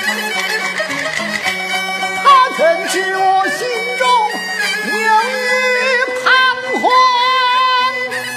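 Peking opera music: a jinghu fiddle plays a wavering melody under sung lines, with a few sharp percussion strikes.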